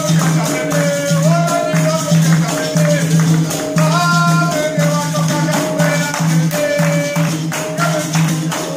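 Capoeira roda music: berimbaus and a pandeiro playing a steady rhythm while the circle claps along and sings a held, stepping melody.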